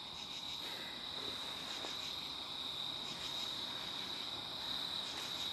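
Crickets chirring steadily at night, one unbroken high-pitched tone.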